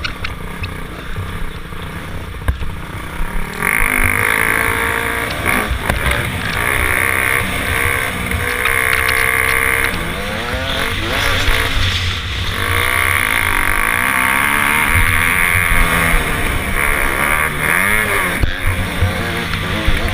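Dirt bike engine running hard, its pitch repeatedly rising and falling as the throttle opens and closes over the track. It gets louder about four seconds in, with low wind rumble on the on-board microphone.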